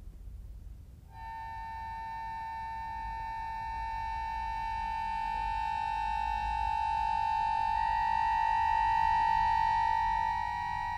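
Accordion holding a high sustained chord that comes in about a second in and slowly swells louder. Near the end its lowest note drops out while the upper notes hold on.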